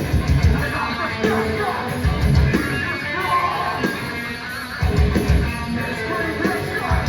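Hardcore band playing: distorted electric guitars and drums with yelled vocals, with heavy bass-and-drum hits at the start, about two seconds in, about five seconds in, and again near the end.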